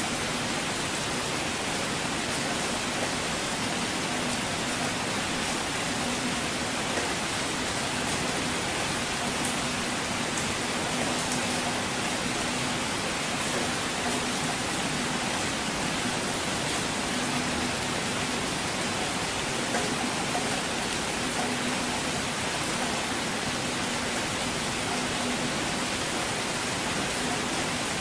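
Steady, even hiss of falling rain, with no thunder heard.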